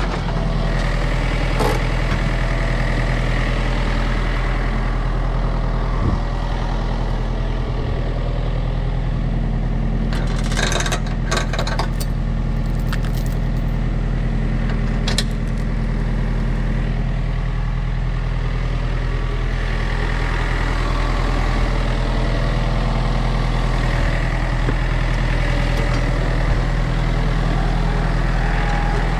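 A heavy engine running steadily at a constant speed, with a cluster of sharp knocks about ten to twelve seconds in and one more a few seconds later.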